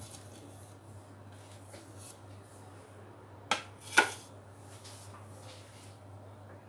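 Kitchen handling noise: two sharp knocks about half a second apart, a little past the middle, with faint rustling before them over a low steady hum.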